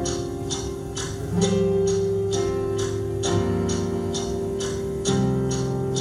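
Instrumental introduction of a song: sustained chords that change about once a second over a steady ticking beat of about two ticks a second.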